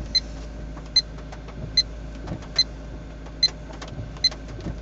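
2011 GMC Sierra's Duramax diesel V8 idling, heard from inside the closed cab as a steady low hum. Over it, a short sharp electronic tick repeats about every 0.8 seconds.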